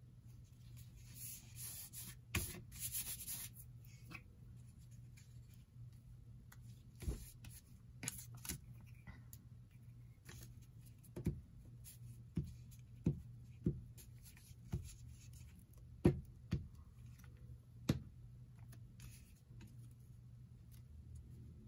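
Paper being handled on a cutting mat: a soft rustle of paper about a second in, then a dozen or so light, separate taps and clicks as pieces are pressed and positioned, all faint.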